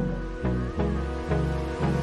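Background music: the instrumental part of a pop song, with a steady beat of about two strokes a second over held bass notes.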